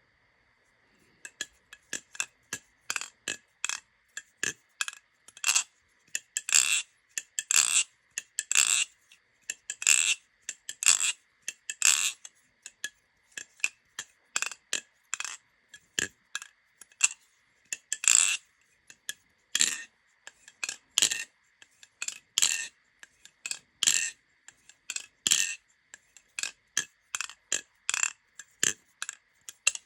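Cold Blade Nautilus tanto knife being worked over and over, its metal parts giving sharp clicks and clacks, several a second, in uneven clusters. A faint steady high tone runs underneath.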